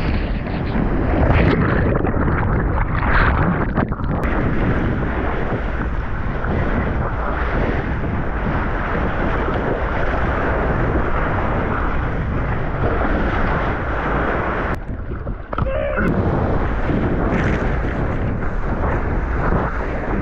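Loud, steady roar of rushing seawater and wind buffeting an action camera's microphone while surfing, with a brief drop in the roar about fifteen seconds in.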